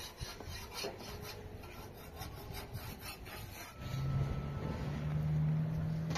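A wooden stick scraping and rubbing on a domed metal saj griddle in a series of short strokes as flatbread is worked loose and lifted off over a wood fire. About four seconds in, a low steady hum comes in and gets louder.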